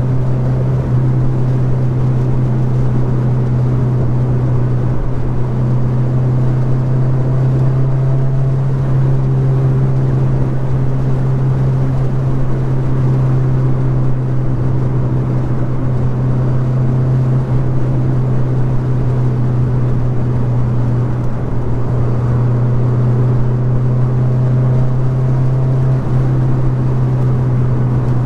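Mazda Miata's four-cylinder engine running steadily at an even cruising speed, with road and wind noise in the open cockpit.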